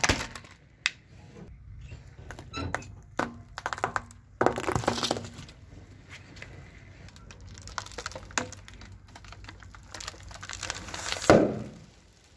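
A car tyre slowly rolling over and crushing assorted objects, among them a plastic toy car and a snack packet. There is a series of separate cracks and crunches, and the loudest burst comes near the end.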